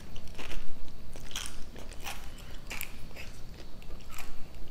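A person chewing a mouthful of crispy fried Nagasaki sara udon noodles close to the microphone: a run of sharp crunches, roughly one every half second.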